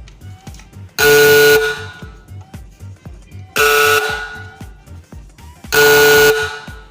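24 V DC electric industrial factory horn sounding three short blasts, each about half a second long and roughly two seconds apart, with a fading tail after each. A quieter music track with a steady beat plays underneath.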